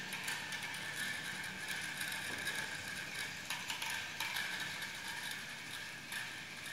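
Small line-following robot's gear motors running with a steady whine, broken by scattered irregular clicks.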